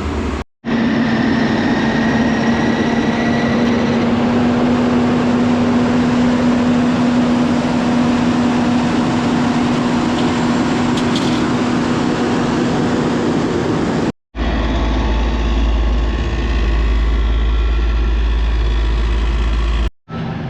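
Heavy engines of road-works vehicles or machinery running steadily, with a constant hum through the first part. The sound cuts out abruptly about half a second in and again near fourteen seconds, after which a deep low rumble dominates.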